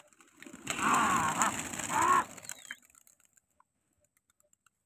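A rush of wingbeats as a large flock of domestic pigeons takes off from the ground at once, lasting about a second and a half, with a wavering call over it.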